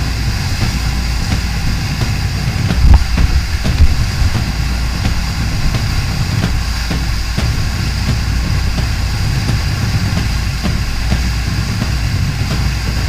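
Steady rush of whitewater rapids with a deep rumble, heard close up as on a boater's camera. Two loud thumps about three and four seconds in.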